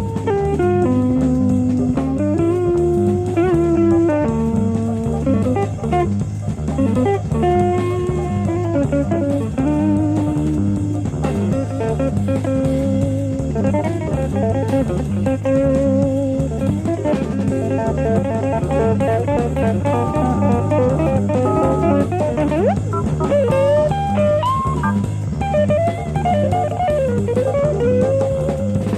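Live jazz-fusion band: a guitar plays a melodic lead line with bent, sliding notes over steady bass and drums. It is a 1970s FM radio broadcast recorded onto cassette tape.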